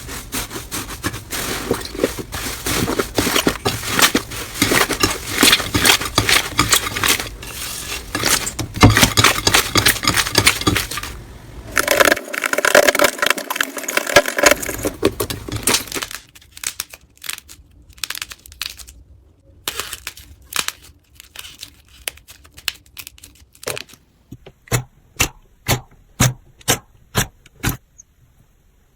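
Slime being squeezed and worked by hand, with dense crackling and popping, then sparser clicks, and near the end a run of evenly spaced pops about two a second.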